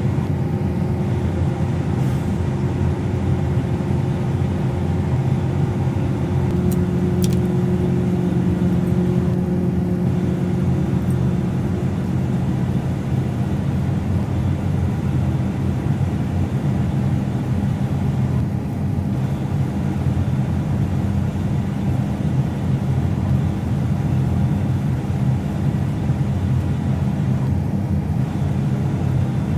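Combine harvester running steadily at work, a low engine drone heard from inside the cab. An extra higher hum joins for several seconds starting about six seconds in.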